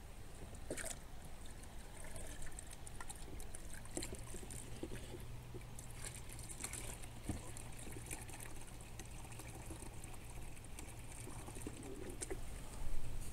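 Water trickling and sloshing as a plastic pitcher is dipped into a cooler of water holding live bluegills, with light knocks of plastic against the cooler.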